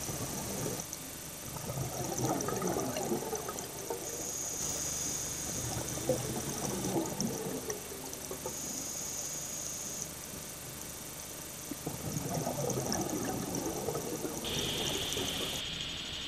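Underwater scuba regulator exhalations: crackling bursts of bubbles lasting a second or two, recurring about every four to five seconds, over a faint steady hiss with a thin high whine that comes and goes.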